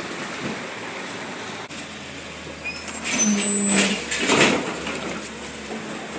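Garbage truck running, with a brief squeal of its brakes about three seconds in, followed by a short hiss of air from the air brakes.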